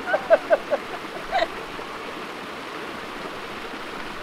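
Steady rush of a mountain stream and small waterfall, broken in the first second by a quick run of about five short, high-pitched cries from a person, and one more about a second and a half in, as she lowers herself into the ice-cold water.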